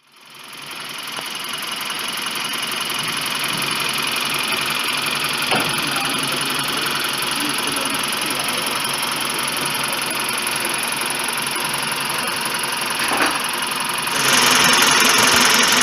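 Mitsubishi Dingo's 4G15 inline-four GDI engine running steadily with the hood open. It rises from silence over the first second, with two brief clicks around six and thirteen seconds in, and gets louder and brighter about fourteen seconds in.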